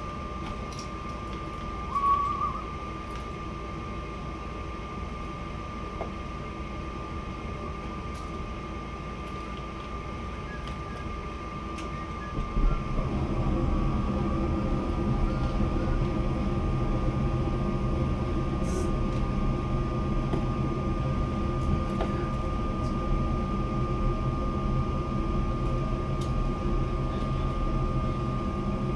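Steady machine hum with a constant high-pitched tone and a few light clicks; about 13 seconds in a louder, lower hum starts up and keeps running.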